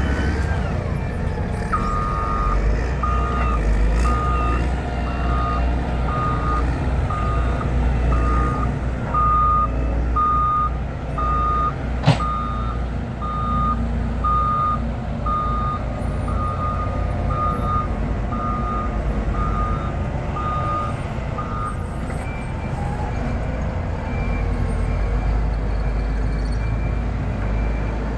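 Reversing alarm on a heavy earthmoving machine beeping about once a second for some twenty seconds, then stopping, over the steady running of diesel engines; a single sharp click is heard about halfway through.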